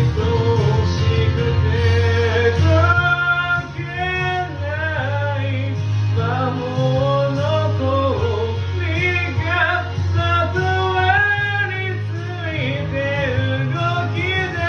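Karaoke backing track of a pop-rock song playing, with a wavering lead melody over steady bass and guitar.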